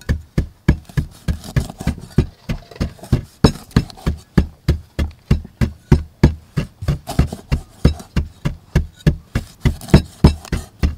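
Cleaver striking a thick wooden chopping board in a steady run of chops, about three to four a second.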